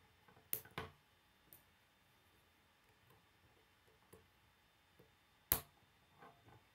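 K'nex plastic rods and connectors clicking as they are snapped together by hand: a few sharp clicks, two close together about half a second in and the loudest about five and a half seconds in, with fainter handling clicks between.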